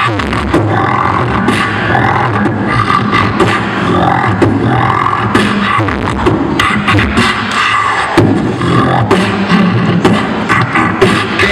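Solo beatboxing into a handheld microphone amplified through a PA: rapid sharp mouth clicks and snares over held low bass tones, with no break.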